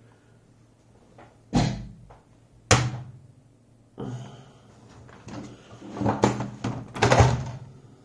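Handling knocks from a lock cylinder and tools being picked up and set down on a hard surface: two sharp single knocks, then a run of clicks and clunks over the last few seconds.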